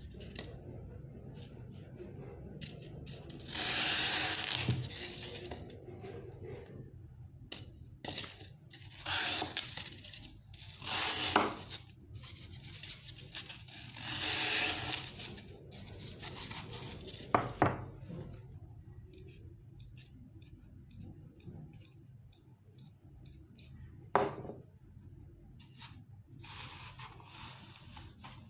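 A knife sawing through blocks of dry green floral foam, in several scratchy strokes of a second or two each, with a couple of sharp clicks as the foam and tools are handled.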